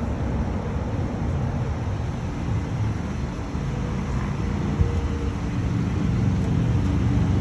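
A low, uneven outdoor rumble of background noise, with no distinct events.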